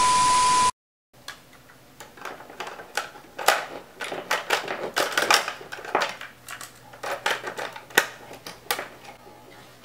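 A brief burst of TV static hiss with a steady beep, cut off sharply. Then a cassette is handled and loaded into a National portable cassette recorder: irregular plastic clicks and rattles of the cassette door, the tape and the piano-key buttons.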